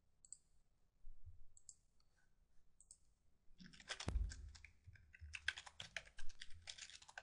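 Three soft clicks spaced about a second apart, then rapid typing on a computer keyboard from about three and a half seconds in.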